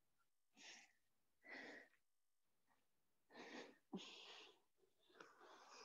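Faint, heavy breathing: about five short, sharp exhalations, one near the middle with a slight voiced grunt, from people straining through side-lying leg raises.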